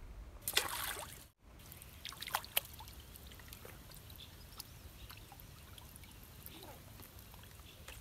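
A hooked fish thrashing and splashing at the water's surface: one loud splash about half a second in, then smaller scattered splashes and drips.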